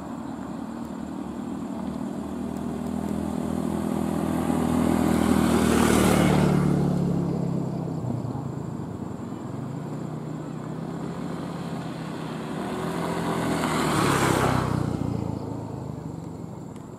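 Two motor vehicles pass close by, one after the other about eight seconds apart. Each engine swells to a peak and then drops in pitch as it goes away.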